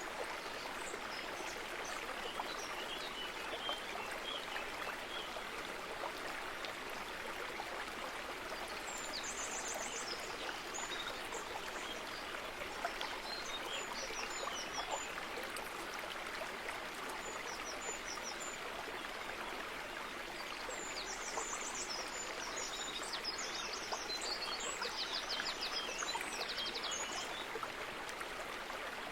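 Steady rush of running water from a stream, with small birds chirping and trilling over it, now and then, most busily about two-thirds of the way through.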